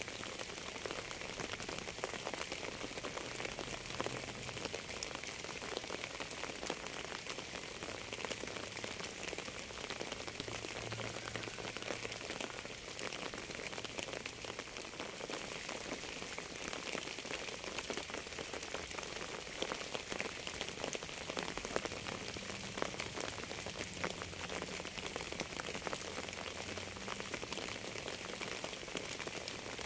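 Steady rain falling, a dense even hiss of countless small drop hits that does not let up.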